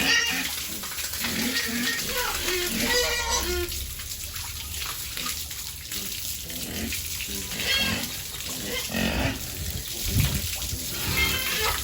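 Running water splashing steadily as piglets are washed, with short high-pitched piglet squeals a few times.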